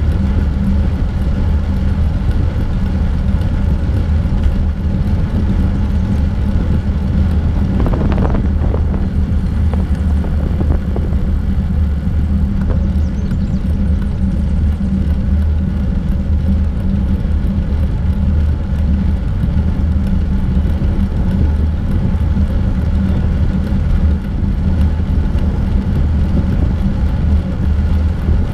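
Steady wind buffeting on the camera microphone and tyre rumble from a bicycle rolling along an asphalt trail, with a short bump about eight seconds in.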